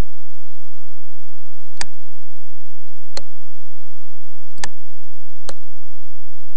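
Four single computer mouse-button clicks, spaced unevenly, made while selecting and dragging a picture's resize handles, over faint steady hiss and a thin hum.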